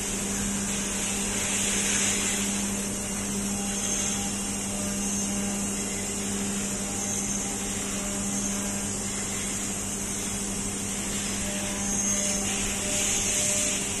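Steady running hum and hiss of a CNC vertical machining centre standing between cuts, with one constant low drone; the high hiss swells briefly about two seconds in and again near the end.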